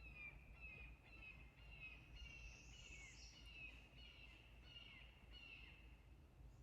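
A bird calling faintly, a run of short, slightly falling notes at about two a second, over a steady low background rumble.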